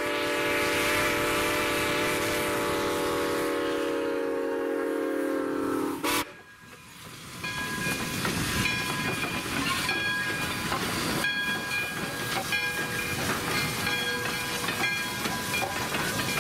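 Chime steam whistle of Atchison, Topeka and Santa Fe #3415, a 1919 Baldwin 4-6-2 Pacific, sounding one long blast that cuts off about six seconds in. After it, the passing train's wheels clatter, with high thin tones coming and going.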